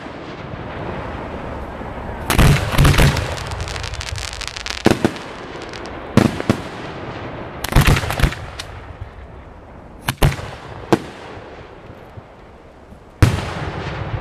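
Aerial firework shells bursting overhead: about ten sharp booms at uneven intervals, each echoing, with a rapid cluster of bangs about two seconds in and a loud single boom near the end.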